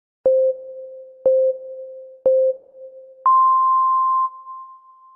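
Electronic time-signal countdown: three short beeps one second apart, then a longer beep an octave higher, each fading away briefly.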